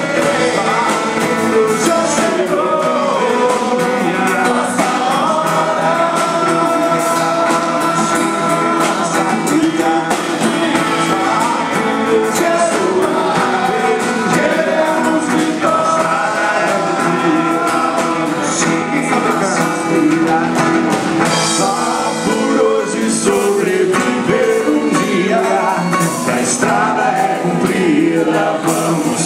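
Band music with singing: a song carrying on steadily at full level.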